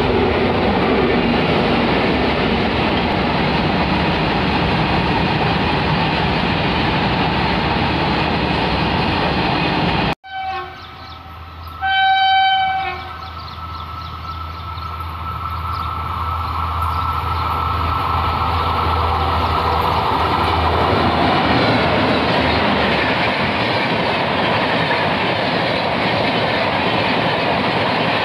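A container freight train rolls past with a steady rush of wheels and wagons. Then a WAP-7 electric locomotive's horn gives a short toot about ten seconds in and a louder blast of about a second just after. The rumble of the approaching express builds steadily as its coaches come by.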